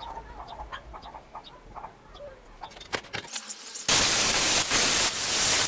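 Light metallic clicks and taps as the hitch coupler in the vise is handled. About four seconds in, a loud rushing hiss starts and runs in spurts with brief breaks.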